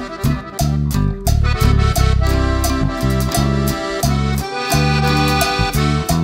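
Instrumental background music with sustained melodic notes over a steady beat.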